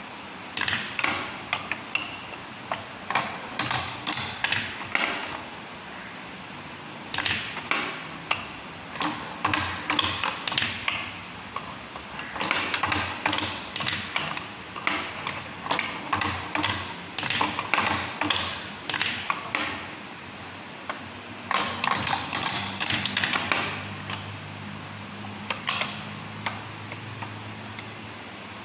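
Marbles clicking and rattling through a balsa-wood marble run, knocking in the wheel's pockets and rolling down the wooden runways. The sound comes in repeated bursts of rapid clicks with short pauses between, and a low rolling rumble for a couple of seconds past the middle.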